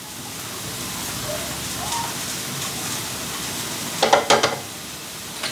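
Shredded ash gourd sizzling in a steel kadai over the flame: a steady hiss, with a few sharp clicks about four seconds in.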